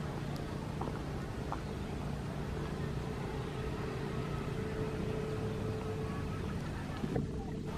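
Steady engine drone: a low, even hum over a haze of noise, with a brief click near the end.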